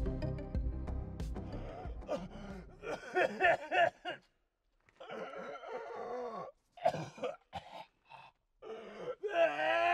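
Background music fades out over the first few seconds, then a person's voice gives a series of wordless, wavering groans and moans with short silences between them, ending in a long, loud drawn-out moan near the end.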